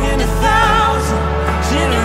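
Live worship song played on piano and acoustic guitar, with a sung melody line held with vibrato.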